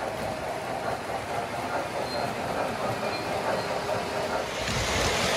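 O gauge model freight cars rolling past on the track with a steady rumble and clatter of wheels. Near the end a louder, heavier rumble builds as another model train comes closer.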